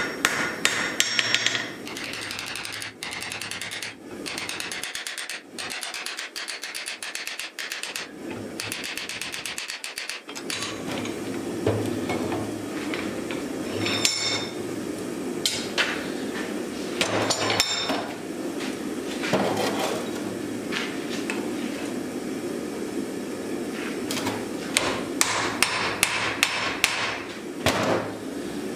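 Hammer blows on red-hot steel: a quick run of strikes on the anvil, then scattered clusters of metallic strikes as the glowing axe head is worked in a vise. A steady low background noise comes in about a third of the way through.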